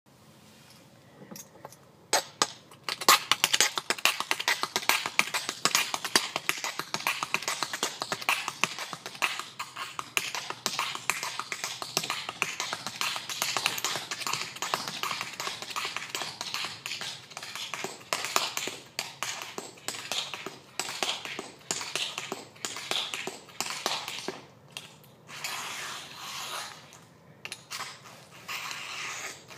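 Tap shoes striking a concrete plaza in fast, dense runs of taps, starting about two seconds in and breaking into shorter phrases with pauses near the end.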